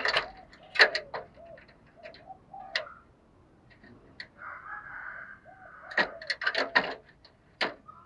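Spotted dove moving about in a wire-mesh cage: a string of sharp clicks and knocks, loudest about a second in and again between six and seven seconds, with short low bird notes between them.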